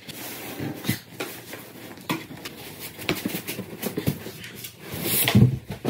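A large cardboard box being unpacked: cardboard flaps and packing rustling, scraping and knocking in short clicks, then a heavier low thump near the end as the box is tipped over.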